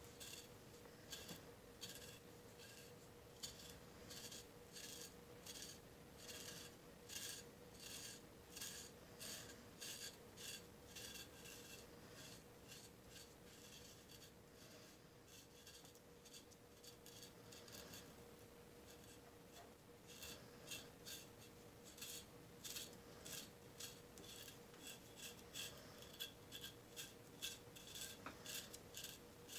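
Knife blade (LT Wright Kamrat) scraping dry psoriasis scales off the skin of a shin: repeated short, dry rasping strokes, sparser in the middle and coming quicker near the end.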